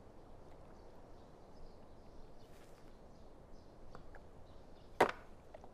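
A wooden xiangqi piece is set down on the wooden board with one sharp clack about five seconds in, over faint birdsong in the background.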